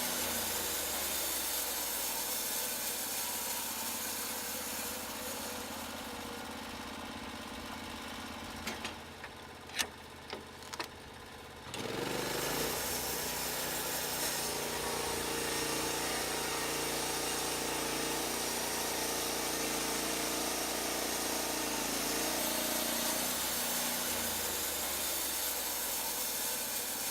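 Gasoline engine of a portable band sawmill running steadily with the blade turning. Partway through it drops quieter for a few seconds, with several sharp clicks. It then revs back up and runs steadily again.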